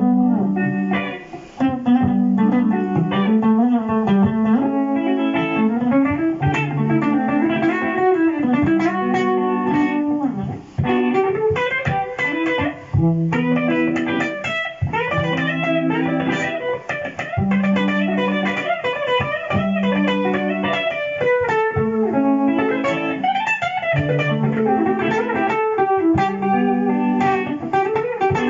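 Electric guitar played through a Boss GT-100 multi-effects processor: a looped part of repeating low notes runs beneath an improvised jazz-style lead line of single notes.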